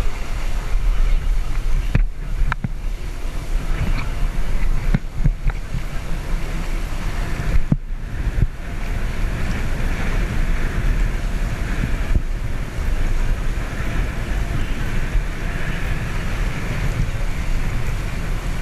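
Wind buffeting the microphone and water rushing and splashing along the hull of a moving catamaran, steady throughout, with a few brief knocks in the first half.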